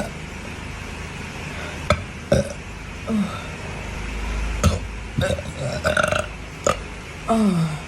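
A person belching repeatedly: a string of short burps, then a longer one near the end that falls in pitch.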